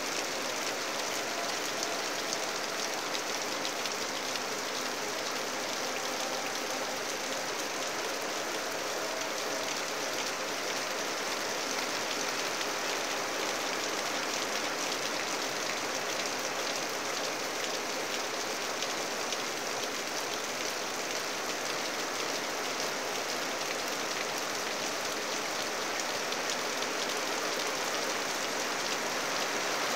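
Steady rain falling on foliage and standing water: an even, unbroken hiss with no pauses.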